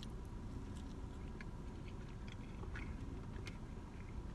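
Faint chewing of a soup-soaked breadstick, with a few small soft clicks, over a steady low hum.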